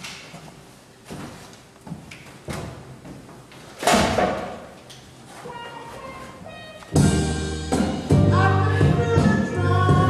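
Scattered rustling and knocks from crumpled plastic and foil litter and footsteps on a wooden stage. About seven seconds in, loud recorded music with a steady bass line starts suddenly.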